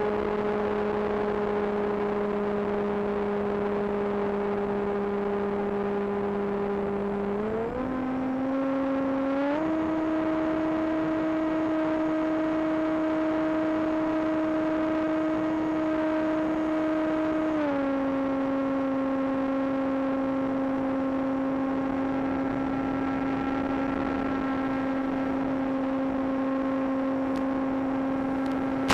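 Electric model plane's brushless motor and propeller running at a steady pitch. The pitch steps up twice, about seven and nine seconds in, as the throttle opens, then drops back partway near the middle and holds there.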